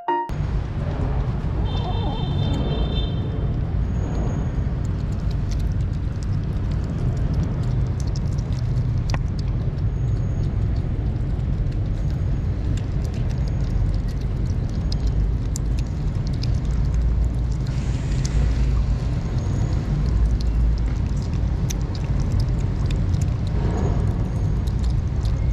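Kittens chewing wet cat food, with small wet clicks and smacks, over a steady low rumble.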